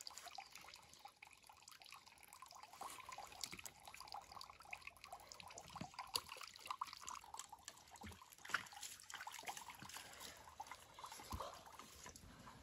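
Faint, irregular water splashing and dripping: small fish being handled in a basin of muddy water, and a plastic ladle scooping and pouring water from a bucket.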